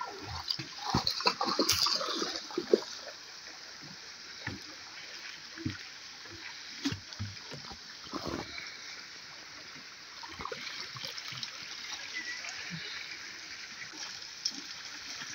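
Shallow river water flowing steadily, with irregular splashes and sloshing from feet wading in it, most frequent in the first half and fewer toward the end.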